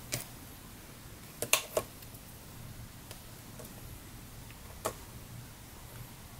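Small craft scissors snipping paper: a few short, sharp snips, three in quick succession about a second and a half in and a single one later, over a faint steady low hum.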